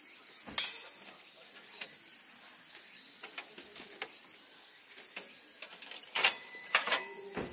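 Camping gear being handled while a tent is pitched: irregular light clicks and knocks, with one sharp knock about half a second in and a few louder knocks close together near the end.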